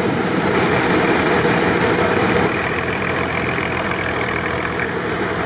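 Unimog truck engine idling close by.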